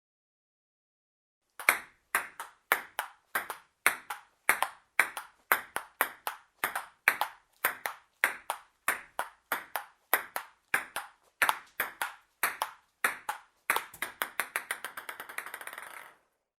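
Ping-pong ball being hit back and forth at a steady pace, its sharp clicks coming about two a second. Near the end the ball bounces faster and faster until it settles.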